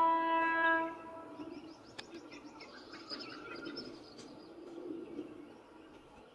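Electric freight locomotive's horn sounding one steady note that cuts off about a second in, followed by birds chirping over faint outdoor ambience.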